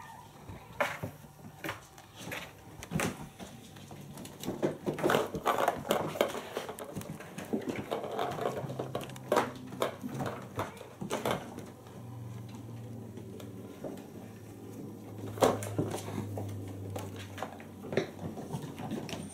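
Kittens batting a ball around a plastic circular track toy: irregular clicks, rattles and knocks of the ball and the plastic, with light thumps of paws on a wooden floor and a low steady hum through the middle stretch.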